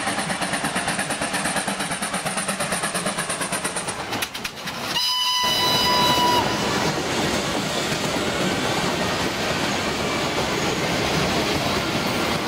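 FS Class 740 steam locomotive running in with a fast, even beat, then a steam whistle sounding one blast of about a second and a half, about five seconds in. After that comes the steady hubbub of a waiting crowd.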